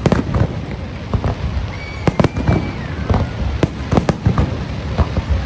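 Fireworks going off: a dense, irregular string of sharp bangs and pops, some close together and some louder than others. A high, wavering whistle sounds for about a second, about two seconds in.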